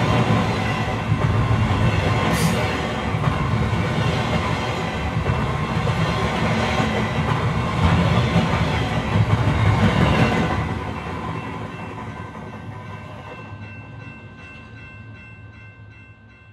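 Train running on the tracks: a dense low rumble that dies away steadily over the last six seconds, leaving a few faint steady tones.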